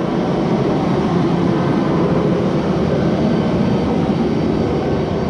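A loud, steady machinery drone from a blacksmith shop, even throughout, with no hammer blows or other impacts.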